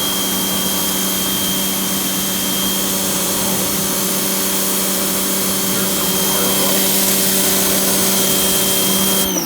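Pressure washer running with a steady motor hum and the hiss of its water spray, then stopping near the end, its motor winding down in pitch.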